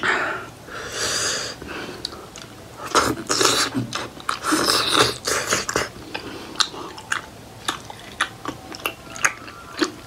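Close-miked chewing of steamed buffalo-meat momos: wet, squishy mouthfuls, louder in the first half, then a run of short mouth clicks and lip smacks.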